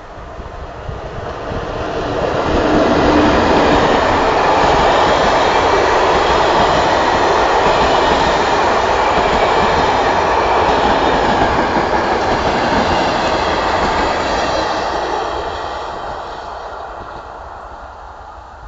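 Electric-locomotive-hauled passenger train passing close by: the rumble and rattle of the coaches' wheels on the rails builds over about three seconds, holds loud, then fades away over the last few seconds.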